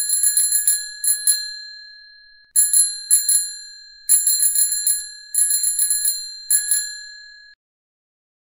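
Bicycle bell rung in six quick trills of rapid strikes, each ringing on and dying away, the last one fading out near the end.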